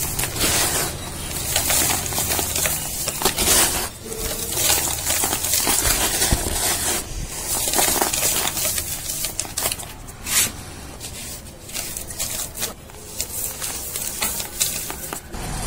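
Dry, dusty cardboard being crushed and crumbled between the fingers: a dense, irregular crackling crunch, coming in spurts with a couple of brief lulls.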